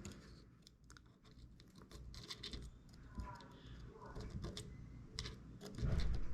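Light, irregular clicks and taps of a small precision screwdriver and tools against the iPhone's internal parts while a bracket screw is fitted.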